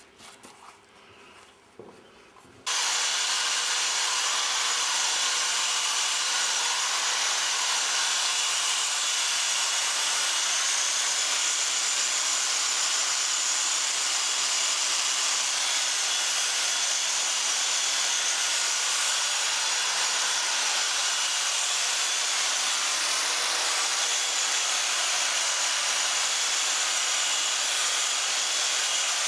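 Angle grinder running steadily with its abrasive disc against the metal of a sheet-metal sculpture, a loud, even grinding hiss that starts abruptly about three seconds in. Before it, only a few faint handling clicks.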